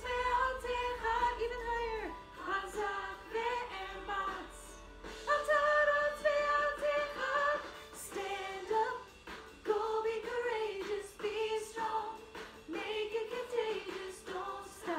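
Music: a woman singing a song, her voice carrying the melody in held and moving notes.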